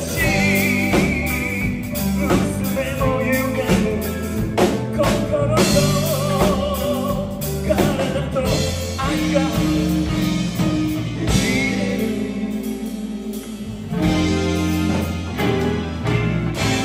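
Live rock band playing: electric guitars, electric bass and drum kit, with a held, wavering melody line over them.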